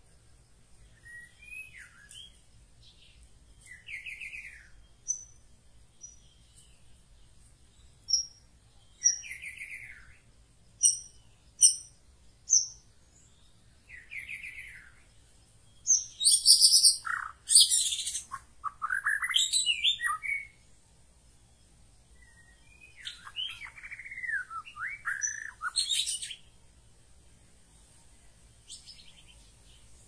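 White-rumped shama (murai batu) singing in separate, varied phrases of whistles and quick chips, loudest around the middle with a run of harsh trills and falling whistles, then a few more phrases a little later.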